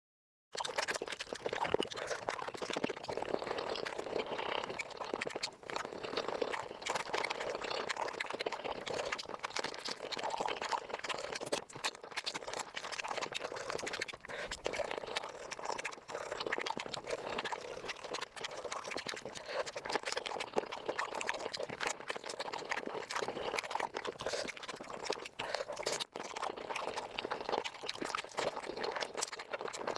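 Close-miked eating of chicken feet, sped up about five times: a dense, rapid run of wet chewing, crunching and slurping clicks. It starts after about half a second of dead silence.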